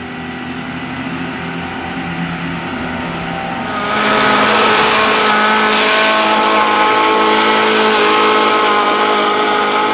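An engine running steadily, getting louder about four seconds in and holding there.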